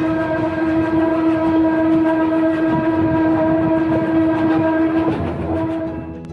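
Steam locomotive whistle sounding one long, loud, steady blast that stops about five seconds in, over the clatter of the carriage wheels on the rails.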